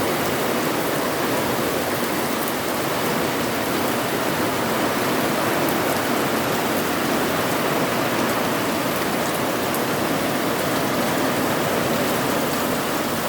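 Heavy summer thunderstorm rain pouring down in a steady, even downpour.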